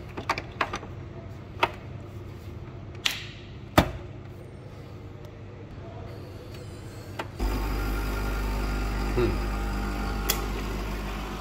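Plastic clicks and a sharp knock as the capsule holder is slotted into a Krups Nescafé Dolce Gusto capsule coffee machine. About seven seconds in, the machine's pump starts with a steady hum and hiss as it brews.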